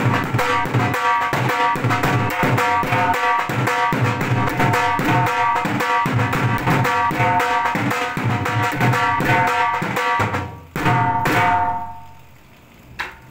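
Two dhol drums played together with sticks in a fast, steady rhythm, deep bass strokes under ringing higher strokes. The playing stops about ten and a half seconds in with two last strokes that ring out, followed near the end by a single sharp tap.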